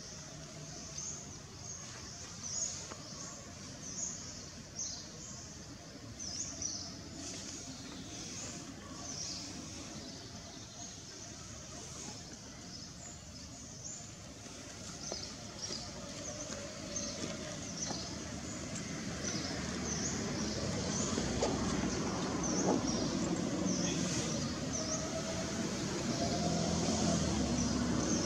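Small birds chirping in many short, high calls, over a low rumble that grows louder through the second half.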